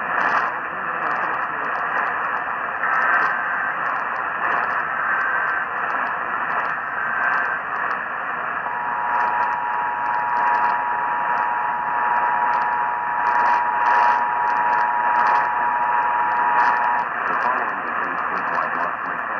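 Weak AM broadcast signal buried in heavy static and crackle. Three brief, faint EAS header data bursts come through, then a little under nine seconds in the two-tone EAS attention signal sounds steadily for about eight seconds before cutting off back to static.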